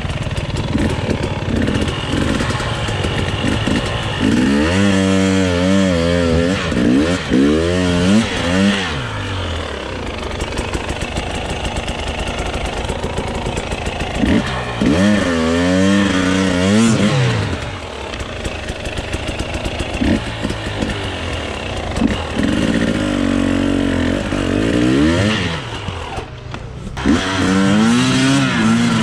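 Enduro motorcycle engines running and revving hard, the pitch swinging up and down in four separate bursts with lower running between them.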